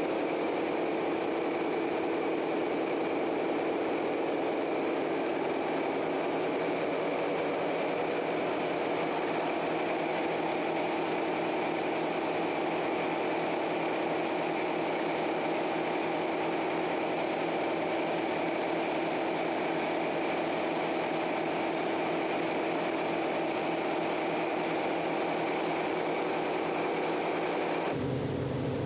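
Steady, loud engine-room noise of a 1938 diesel-electric fireboat under way: diesel engines running with a high, steady whine over the drone. The sound changes abruptly near the end.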